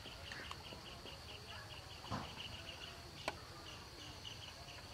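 Insects chirping in a rapid, regular pulse of about five chirps a second over a steady high insect hum. A soft thump about two seconds in and a single sharp click a little after three seconds.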